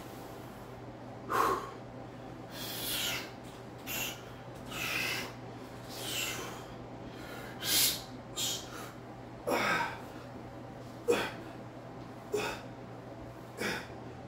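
A man breathing hard from exertion: short, forceful breaths through the nose and mouth, about one every second or so. A steady low hum runs underneath.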